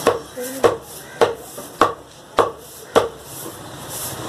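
Butcher's cleaver chopping meat on a wooden tree-stump block: six sharp strikes, evenly spaced a little over half a second apart, stopping about three seconds in.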